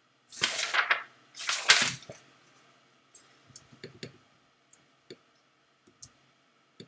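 Two short rushes of hissing, rustling noise about a second apart, then a scattered run of light clicks at the computer as the design is zoomed out.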